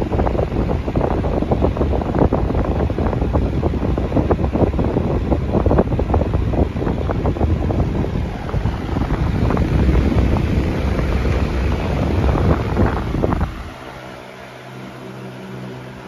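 Universal 18-inch wall fan running, its airflow blowing straight onto the microphone as a loud, rough wind rumble. About 13 seconds in, as the oscillating head turns away, the buffeting drops off sharply and the fan's steady motor hum and blade whoosh come through.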